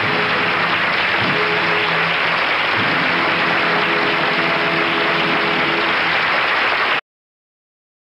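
Applause with music playing under it, cut off abruptly about seven seconds in.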